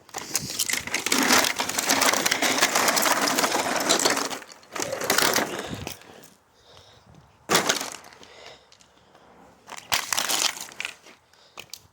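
Plastic housing of a Dyson vacuum cleaner cracking and crunching as it is smashed: a long stretch of dense crackling, then several shorter crunches.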